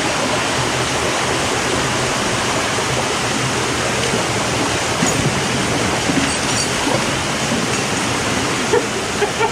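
Large waterfall pouring: a loud, steady rush of falling water.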